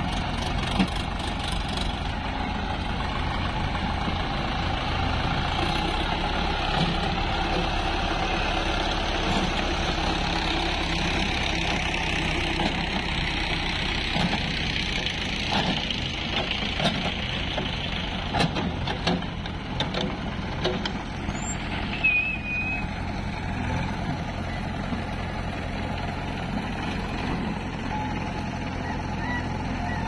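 Diesel engines of a JCB 3DX backhoe loader and farm tractors running steadily as the backhoe works its hydraulic arm. Scattered knocks come from about halfway through, as the bucket and mud hit the tractor trolley.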